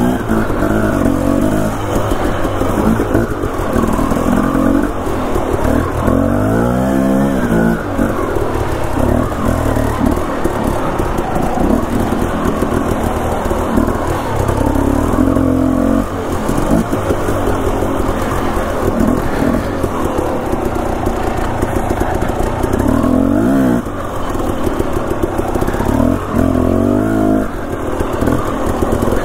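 Two-stroke dirt bike engine running at low revs on a trail ride. The revs swell and drop back a few times: once about seven seconds in and twice more near the end.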